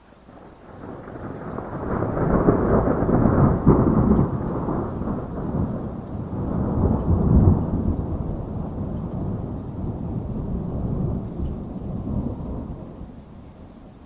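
A long roll of thunder over rain: it builds over the first two seconds, rumbles loudest twice, then fades away near the end, with steady rain falling throughout.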